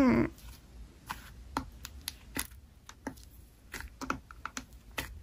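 Fingers pressing and squeezing thick green slime, giving irregular small clicks and crackles.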